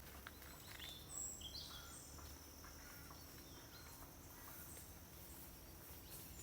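Quiet rural outdoor ambience with a few faint, short, high bird chirps, the first about a second in.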